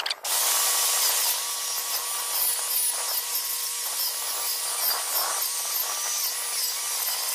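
Angle grinder grinding a weld pass off a steel pipe, its whine wavering in pitch as it bears down. The pass was run too cold and is being removed.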